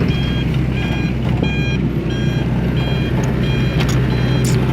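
Reversing alarm of a heavy road-works vehicle beeping at an even pace, about one and a half beeps a second, over the steady low hum of its running engine.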